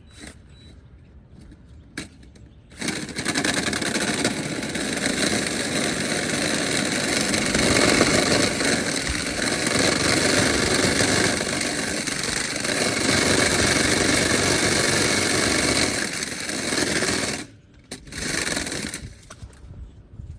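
A motorised tool, such as a drill, running for about fifteen seconds as it works a coat-hanger wire inside a dryer vent duct, the wire rattling and scraping against the duct to clear lint. It starts about three seconds in, cuts off abruptly near the end, then runs again briefly.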